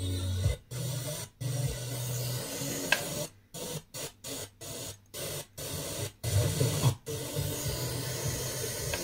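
FM radio receiver giving static hiss with a weak, distant station faintly underneath. It is broken by a string of short dropouts to silence, coming fastest midway, as the tuner is stepped between 87.75 and 87.85 MHz. This is typical of a weak sporadic-E signal.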